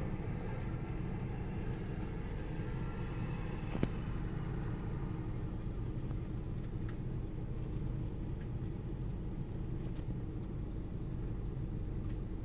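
A vehicle engine idling with a steady low rumble, and a single sharp click about four seconds in.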